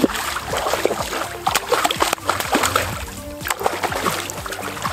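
A hooked pike thrashing and splashing at the water's surface, heard over background music with steady sustained notes.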